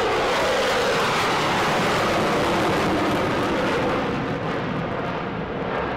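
Jet aircraft flying past at full power with afterburners (reheat) lit: a steady, loud rushing noise that eases slightly after about four seconds.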